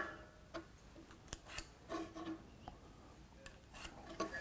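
Faint, scattered clicks and light taps of a pencil and a try square handled against a square wooden blank on a stopped lathe, as the blank is marked out.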